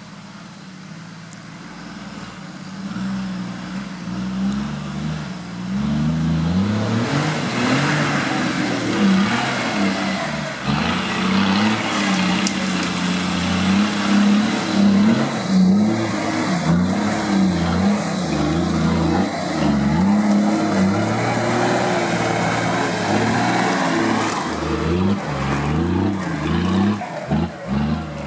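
Off-road competition vehicle's engine revving up and down again and again. It gets much louder about six seconds in.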